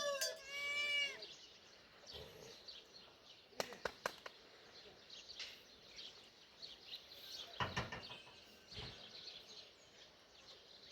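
A goat bleats once in a wavering call during the first second. Faint scattered clicks and a few short knocks follow, two close together about three and a half seconds in and more near eight seconds.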